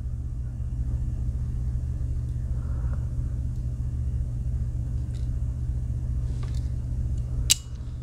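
Steady low rumble, then one sharp metallic click near the end as a tool of a Victorinox Swiss Army knife snaps closed.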